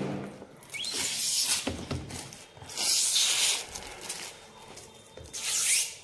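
Plastic protective wrapping on a new top-load washing machine being handled and peeled, rustling and crackling in three short bursts: about a second in, around three seconds in, and near the end.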